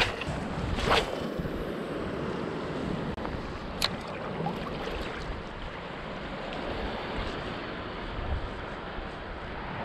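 Steady wash of shallow ocean water and wind noise on the microphone. A couple of sharp clicks, about a second in and again near four seconds.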